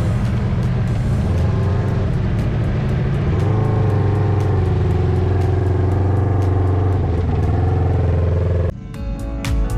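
Side-by-side UTV engine running steadily under way on a dirt trail, rising slightly in pitch partway through. Near the end it cuts off suddenly and music with plucked notes begins.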